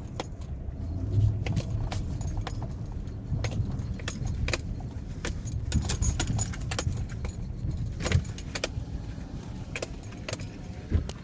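Interior of a vehicle driving over snow-covered lake ice: a steady low rumble of engine and tyres, with frequent sharp clicks and rattles from loose things in the cab as it bounces along the ruts.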